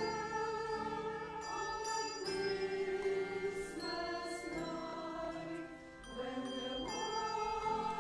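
Mixed choir singing a slow hymn in sustained chords, with handbells ringing along; the music softens briefly about three quarters of the way through.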